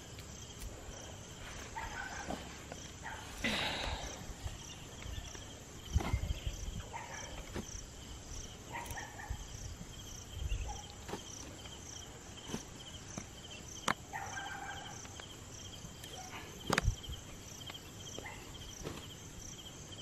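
Insects chirring steadily in the field, with scattered rustles, soft thumps and sharp clicks from sweet potatoes being picked up off the soil and dropped into a cloth sack.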